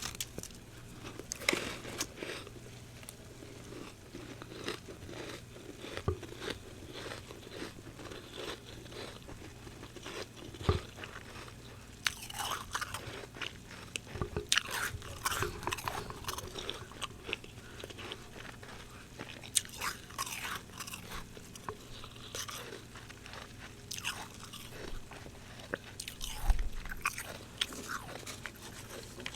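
Close-up biting and chewing of soft freezer frost, grown with a humidifier: a run of irregular crunches, with no steady rhythm.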